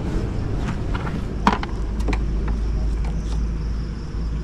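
Scattered short clicks and knocks of metal and plastic parts as the opened underseat compartment and rear luggage rack of a Honda Activa scooter are handled during a roadside repair, over a steady low rumble.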